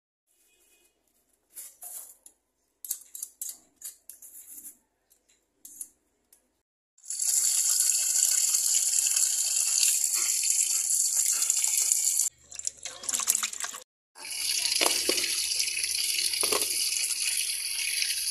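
Kitchen tap water running into a steel pot to rinse cut squash and green chilies. For the first several seconds only light handling knocks and rustles are heard; then the tap runs steadily, stops briefly with a clatter of the pot, and runs again.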